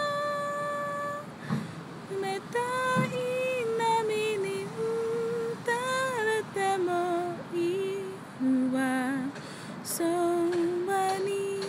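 A woman singing unaccompanied, a slow melody of held notes moving step by step, with a lower wavering note a little past the middle.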